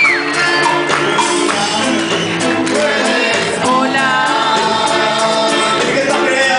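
Music with singing and percussion, including shaker or tambourine strokes.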